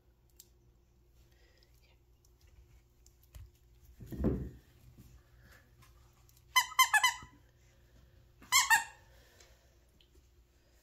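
Squeaky plush dog toy squeezed by hand: a quick run of three or four squeaks about six and a half seconds in, then one more short squeak about two seconds later. A dull thump comes earlier, about four seconds in.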